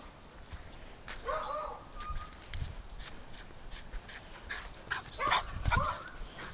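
A dog making brief whining sounds, about a second and a half in and again around five seconds, among scattered sharp clicks and rattles.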